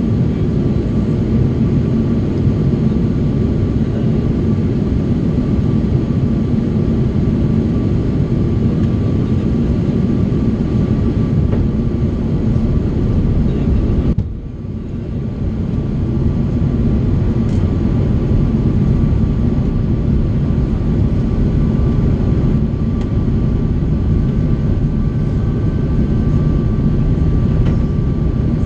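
Steady airliner cabin noise inside an Airbus A330-200 on descent: airflow and the drone of its General Electric CF6 turbofan engines, with a faint steady high whine. The sound drops suddenly about halfway through and builds back over a couple of seconds.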